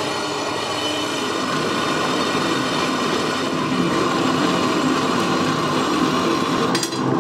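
Small metal-cutting band saw running, its blade cutting through an M14 threaded steel rod. A steady, even whine with a brief dip near the end.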